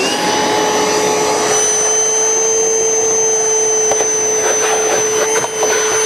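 Milwaukee M18 cordless wet/dry vacuum switched on, its motor spinning up at once and then running steadily with a high whine while it sucks up water through the hose in wet mode. From about four seconds in, irregular crackles and slurps mix in as the nozzle draws the last of the water.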